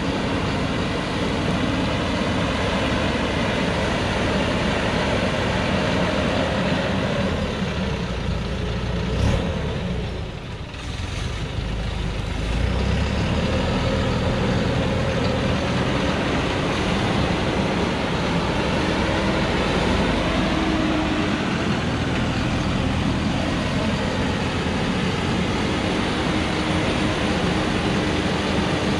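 Diesel engine of a Thaco Forland FC950 4WD truck running under load as the truck crawls through a muddy forest track. It goes briefly quieter about ten seconds in, then pulls steadily again.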